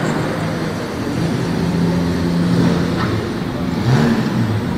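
Vintage racing car engine running at low speed as the car drives past, holding a steady note, then rising and falling in pitch as the revs change near the end.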